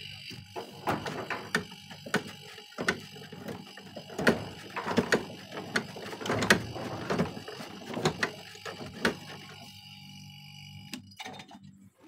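Irregular clicks and light knocks, busiest in the middle, over a faint steady hum.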